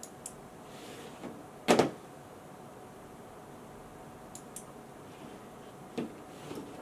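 Computer mouse clicking a few times, light and sharp, including two close together about four and a half seconds in, as extra terminal windows are closed. One louder knock comes about two seconds in.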